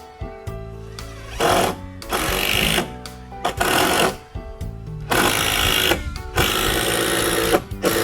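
Power drill driving screws into a timber wall frame in about six short bursts, its motor whining and rattling with each run.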